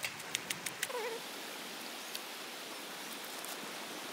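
Sticks burning in a small wood-fired camp stove under a pot: a quick run of sharp crackles in the first second, then a steady hiss with an occasional pop. A short wavering squeak comes about a second in.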